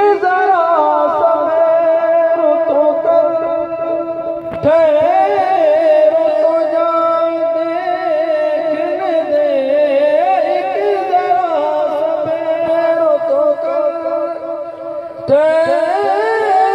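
A naat being sung: a voice holds long, ornamented notes over a steady drone. New phrases come in about four and a half seconds in and again near the end.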